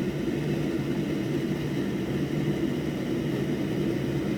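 Steady mechanical fan hum, a low drone that holds the same pitch with no breaks.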